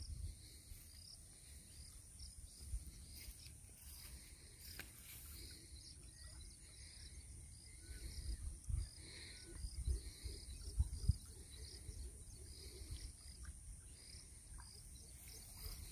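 Faint outdoor ambience: a low rumble with a few soft thumps around the middle, faint bird chirps and a steady faint high tone.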